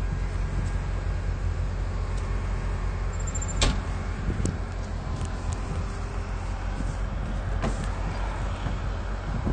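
Engine of heavy lifting equipment running steadily, with a sharp clank about three and a half seconds in and another near eight seconds in.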